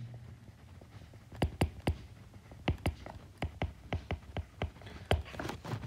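Stylus tapping and clicking on a tablet screen during handwriting: a run of irregular light clicks, a few each second.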